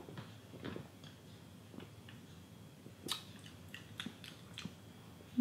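Faint mouth sounds of a man sipping and swallowing beer from a glass and tasting it, with scattered small clicks, more of them in the second half.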